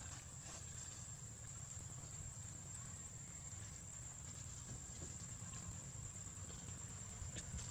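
Faint outdoor ambience: a steady, high-pitched insect drone over a low background rumble.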